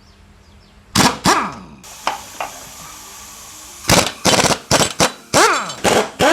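Irregular sharp metal knocks and clanks from tools working on the 4G63T engine and gearbox as the gearbox is separated, a few at first, then a quick run of them from about four seconds in, some ringing briefly.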